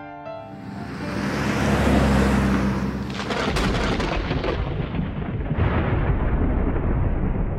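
Thunderstorm: a deep roll of thunder swells over the first two seconds, then a sharp thunderclap about three and a half seconds in, over steady rain.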